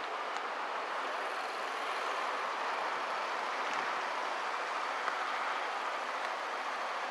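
Steady outdoor background noise: an even hiss with no engine note, voice or distinct events.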